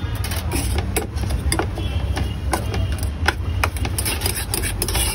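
Metal spoon clinking and scraping against a steel bowl as grilled paneer tikka pieces are tossed in masala, in sharp irregular knocks about one or two a second, over a steady low hum.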